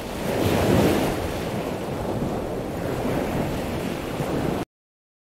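Ocean wave breaking, a rushing surf noise that swells in the first second and then holds steady before cutting off abruptly near the end.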